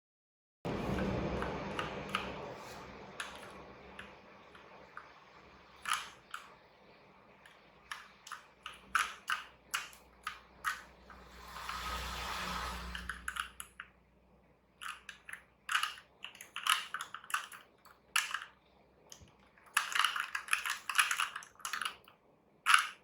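Keys of a Motospeed CK62 mechanical keyboard with linear red switches clacking in irregular bursts, several keys pressed together as in an anti-ghosting test, with a short rustling noise about halfway through.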